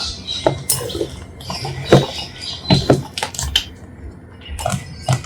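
Kitchen utensils and dishes clinking and knocking: a string of sharp taps and clacks at irregular intervals, the loudest about two seconds in.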